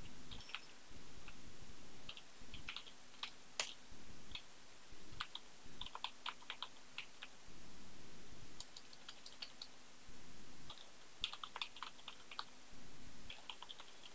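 Computer keyboard typing: scattered key clicks in short, irregular bursts. A low background hum cuts in and out every few seconds underneath.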